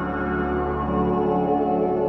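Ambient background music of steady, overlapping held tones.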